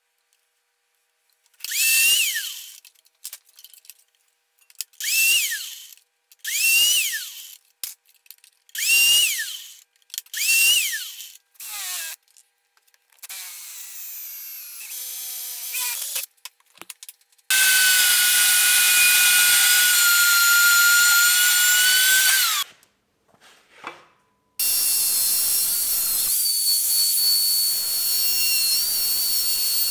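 Metalworking power tools in quick succession. First come short bursts that each rise and fall in pitch. Then come steady runs of a drill boring into steel, and over the last few seconds an angle grinder's cut-off disc cuts through square steel tube with a steady high whine.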